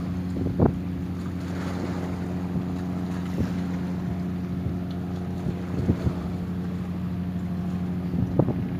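A wooden motor boat's engine drones steadily as the boat pushes against a strong current. A few brief thumps hit the microphone about half a second in, around six seconds, and near the end.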